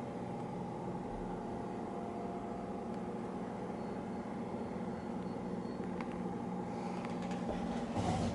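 Steady mechanical hum of an indoor appliance or ventilation unit, with a couple of faint clicks and a short knock near the end.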